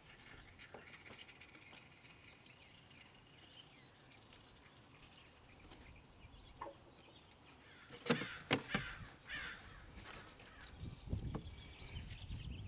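A bird cawing several times in quick succession about eight seconds in. Faint chirps come earlier over a quiet outdoor background.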